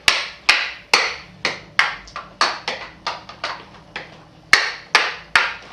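A toy hammer banging repeatedly on a hard surface: about fifteen quick, sharp knocks at two to three a second, with a short pause a little past the middle.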